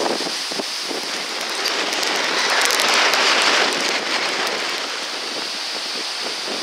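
Heavy tropical-storm rain pelting a flooded street, driven by wind, a steady hiss that swells to its loudest about three seconds in.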